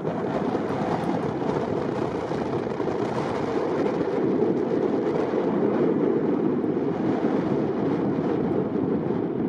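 Wind blowing across the microphone: a steady, loud rushing noise.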